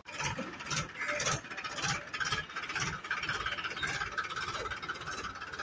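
Mahindra 265 DI tractor's three-cylinder diesel engine running with a rattling clatter, uneven in loudness, as the tractor manoeuvres slowly.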